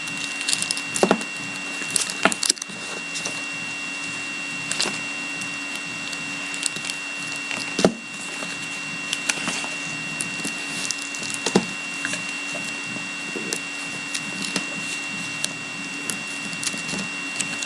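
Sealed hockey card packs being handled, with scattered sharp taps and rustles as they are picked up and set down, over a steady faint high-pitched electrical whine.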